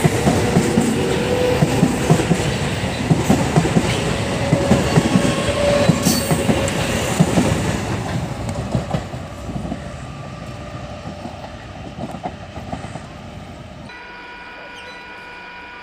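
MEMU electric commuter train accelerating past at close range, its wheels clattering over the rail joints with a held whine, fading away after the last car passes about eight seconds in. Near the end the sound changes abruptly to a quieter steady hum with several held tones.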